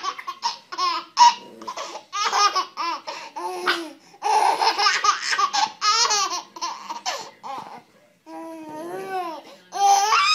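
Baby laughing in fits of short, high-pitched bursts, with a short pause about eight seconds in before laughing again.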